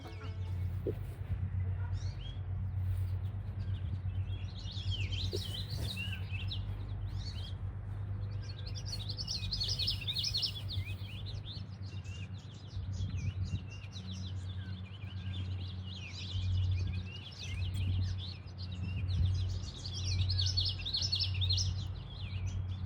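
Many birds chirping and peeping at once, short high calls packed closely together, over a steady low hum that swells and fades.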